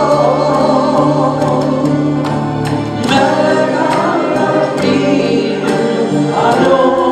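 Congregation and worship team singing a slow praise song, voices holding long notes over instrumental accompaniment with light percussion hits.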